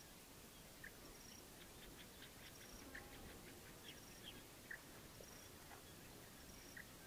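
Near silence: a faint outdoor background with scattered soft, high chirps and ticks and a faint high note recurring roughly every second.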